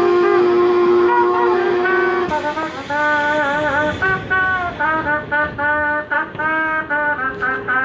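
Trumpet played solo, live. It holds one long note for about two seconds, then plays a melody of shorter notes, some with vibrato.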